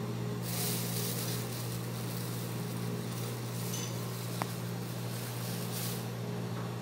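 Steady low electrical hum with an even hiss, the kitchen's background tone, broken by a single sharp click about four and a half seconds in.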